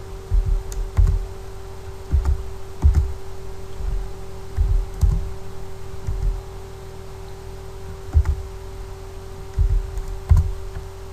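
Computer keyboard keystrokes, about a dozen at irregular intervals, heard as dull knocks over a steady low hum.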